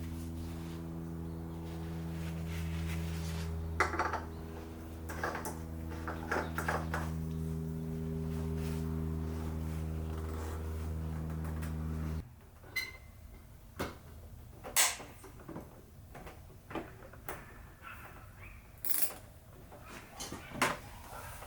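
A steady mechanical hum with several even tones cuts off suddenly about twelve seconds in. Sharp metallic clinks and knocks, like hand tools and parts being handled, come through it and go on after it.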